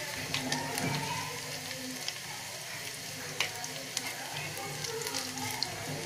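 Crushed garlic cloves sizzling and frying in hot mustard oil, a steady crackle with many small scattered pops, as a spoon stirs them in the pan.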